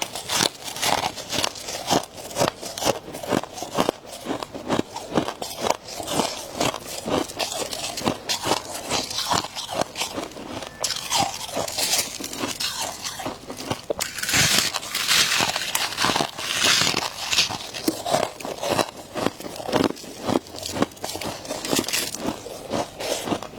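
Ice being bitten and chewed, a rapid run of crisp crunches and crackles with a denser patch of crunching a little past the middle.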